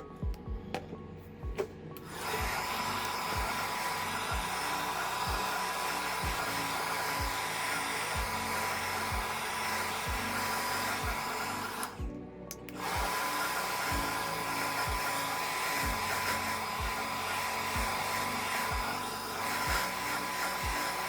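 Hot-air blower running steadily, with a thin whine from its motor. It starts about two seconds in, cuts out for about a second around the middle, then runs again. Background music with a steady beat plays throughout.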